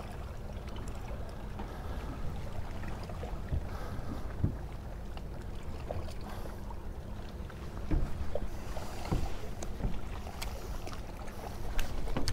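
Low steady rumble of wind and water around a small fishing boat, with a faint steady hum and a few light clicks and knocks as the baitcasting rod and reel are handled.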